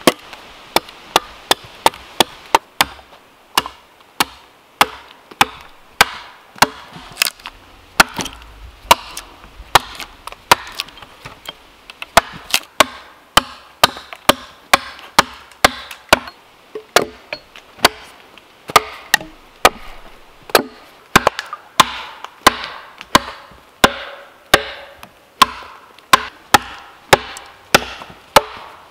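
Sharp, evenly paced strikes of a hand tool cutting into wood, a little under two a second, each with a short ring.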